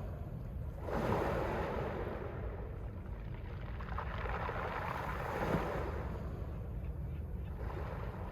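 Mediterranean sea waves washing onto the shore, two surges swelling and fading, the first about a second in and a larger one in the middle, over a steady low rumble.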